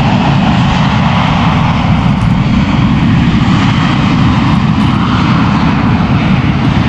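Loud, steady engine noise of an airplane passing close by.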